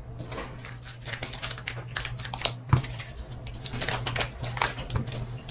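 Foil wrapper of a block of butter crinkling as it is peeled open by hand, a run of small irregular clicks and rustles, with one sharper knock nearly three seconds in. A low steady hum sits underneath.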